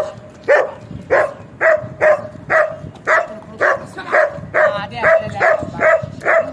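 Shepherd dog barking repeatedly in a rapid, steady series of short barks, about two a second.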